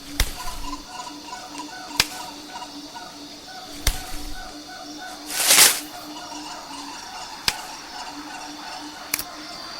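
Designed jungle soundscape: a steady chorus of short pulsing calls repeating several times a second, broken by sharp single knocks every couple of seconds. The loudest sound is a brief whoosh about halfway through.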